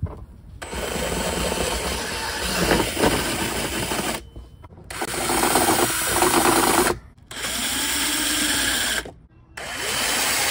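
Power drill boring out holes in a plastic car underbody cover. It runs in four bursts of two to three seconds each, stopping briefly between them.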